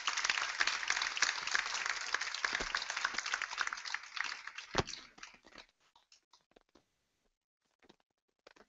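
Audience applauding, a dense patter of many hands clapping that dies away about five seconds in, with one sharp knock near its end, leaving a few scattered clicks and knocks.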